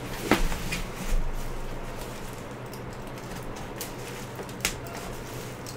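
Bubble wrap and packing plastic being slit with a small cutter and handled: a few sharp crinkles and clicks, the loudest just after the start and one more near the end, over a low steady hum.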